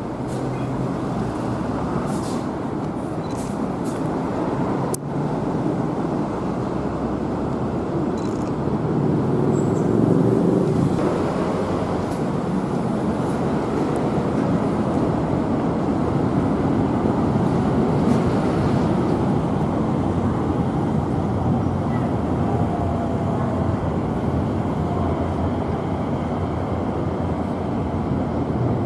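Steady rumble of passing vehicles, growing louder about ten seconds in.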